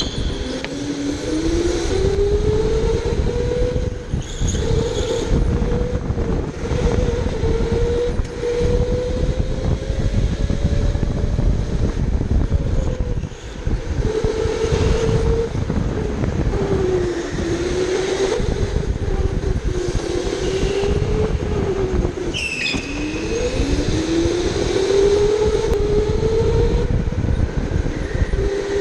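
Electric go-kart motor whining as it runs. The pitch rises as the kart accelerates and dips as it slows through the corners, over a heavy rumble of chassis and floor vibration. About 22 seconds in there is a short high squeal.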